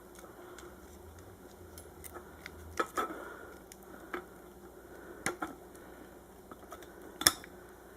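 Wire snips cutting the small wires of a ceiling fan switch and capacitor: a few sharp, scattered clicks and snips amid faint handling, the loudest about seven seconds in.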